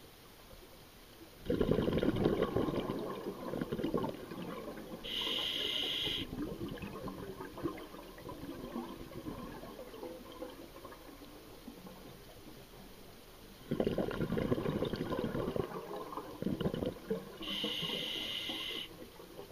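A scuba diver's regulator breathing underwater: two breaths, each a few seconds of bubbles rumbling out on the exhale, followed by a short, high hiss of air drawn through the regulator on the inhale.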